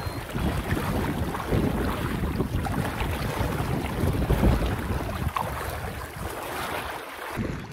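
Legs wading through a knee-deep river, the water splashing and sloshing unevenly with each step, mixed with wind rumbling on the microphone.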